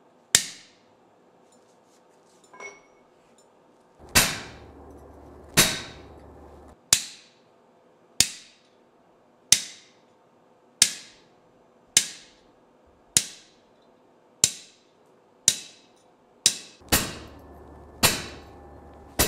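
Blacksmith's hammer striking a chisel held on a forged steel leaf on the anvil, cutting the leaf's veins. About fifteen sharp, ringing blows, roughly one every second and a quarter.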